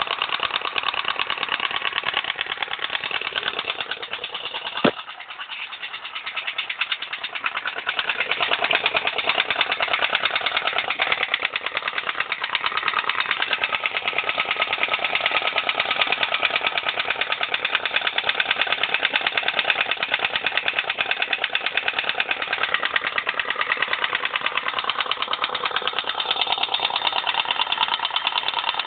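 Viper Zubr motorcycle engine running with a fast, steady knocking tick in the engine. A sharp click comes about five seconds in; the engine sound then drops for a couple of seconds and comes back up.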